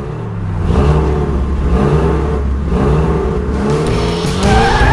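Hot-rod-style car engine rumbling at idle and revving up and down again and again, about once a second.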